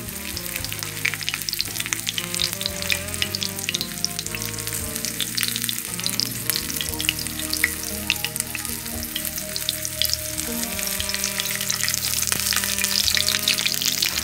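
Cornmeal-coated fish fillets frying in about an inch of hot olive oil in a cast-iron skillet: a steady sizzle full of quick crackling pops, growing louder near the end.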